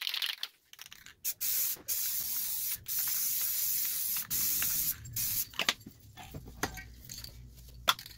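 Aerosol spray paint can spraying in four or so hissing bursts of about a second each, separated by brief pauses. The hissing stops about five seconds in, and a few sharp clicks follow.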